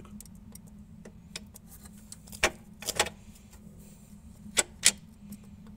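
VW Polo gear shift linkage being worked by hand, giving a few sharp clicks and knocks, loudest about two and a half, three and nearly five seconds in, over a steady low hum. A newly fitted linkage part leaves it with only slight play.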